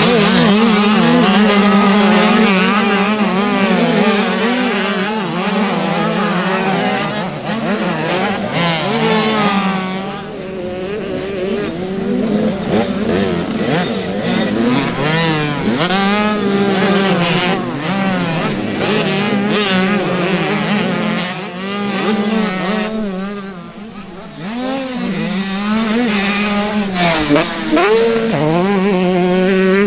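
Small two-stroke youth motocross bikes racing, their engines revving up and down in pitch as the riders work the throttle and shift through the corners and over jumps, with several bikes heard together at times.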